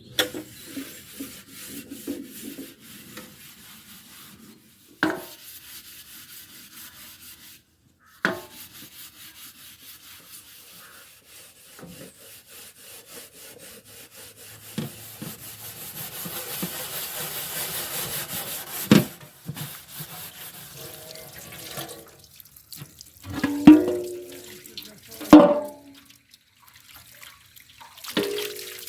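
Water running from a tap and splashing, swelling for a few seconds near the middle, with scattered knocks and clatters of kitchen things.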